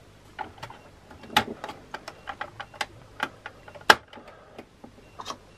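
Small plastic pieces clicking and tapping as gun parts are fitted onto a vintage Star Wars AT-AT toy's head. An irregular string of light clicks, with the sharpest snap about four seconds in.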